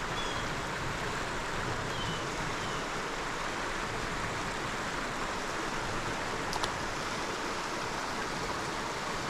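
Creek water running steadily. A few faint high chirps come in the first few seconds, and there is a single sharp click about six and a half seconds in.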